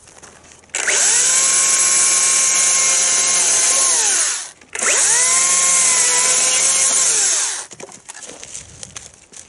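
Makita 36-volt battery chainsaw run up to full speed twice, about three seconds each with a half-second break between. It has an electric motor's steady, blender-like whine over chain hiss, winding up at each start and spinning down at each stop.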